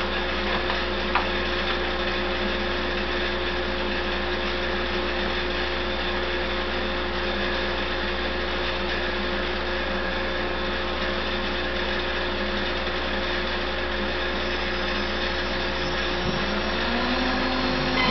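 Router motor on a CNC router table running with a steady high whine and hiss. Near the end a second tone rises in pitch and holds.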